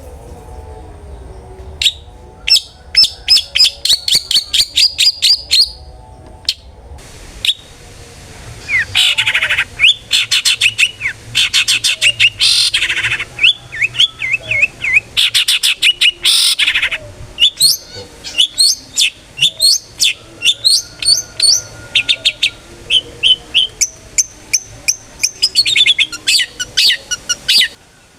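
Long-tailed shrike (cendet) singing loudly in full song: phrases of rapid, sharp repeated notes, some sliding up or down in pitch, broken by short pauses. This is the kind of song bird keepers play as a lure to get a captive cendet to sing.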